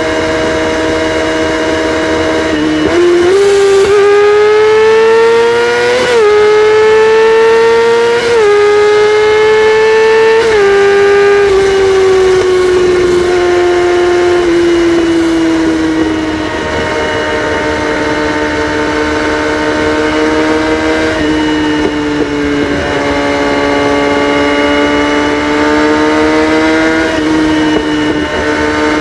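Kawasaki ZX-6R inline-four engine running with its catalytic converters removed. Its pitch climbs in three steps with short dips between them, then eases down and holds steady.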